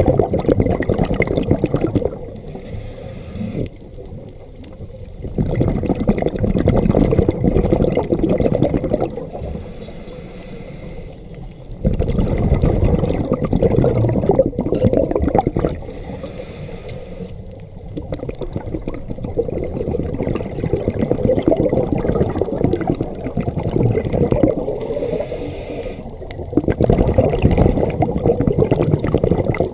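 A scuba diver breathing through a regulator underwater. Each breath is a short hiss from the demand valve, then a long rush of exhaust bubbles, repeating about every six to seven seconds.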